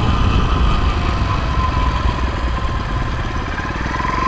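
Small 49cc motorized-bicycle engine running steadily while riding, with a thin steady whine above the low rumble.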